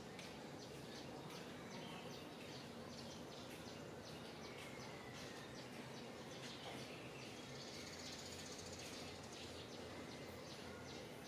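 Faint steady outdoor background noise with scattered short, high chirps of small birds and a faint falling whistle a little under halfway through.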